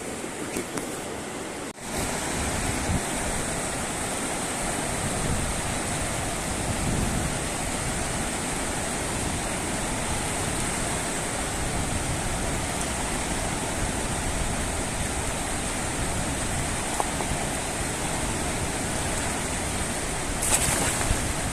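Steady rushing of a fast-flowing river current, with a short drop about two seconds in, after which it runs a little louder.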